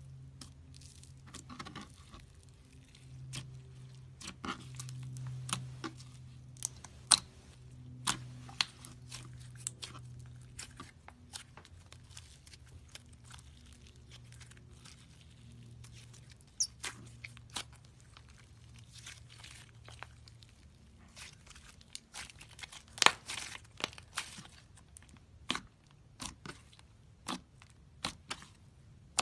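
Slime being squished and stretched by hand, giving irregular sharp clicks and pops, some louder than others. A low steady hum sits underneath and stops about two-thirds of the way through.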